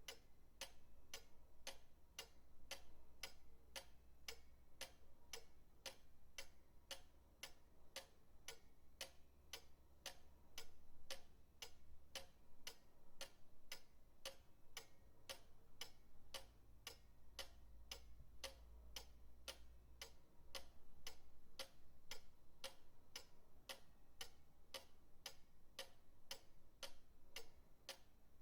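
Pendulum clock ticking steadily and evenly, about two ticks a second, over a faint low rumble.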